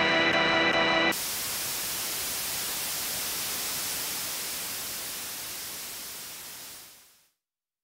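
A held chord of the backing music stops abruptly about a second in and gives way to a steady hiss of white noise, like static, which fades out near the end.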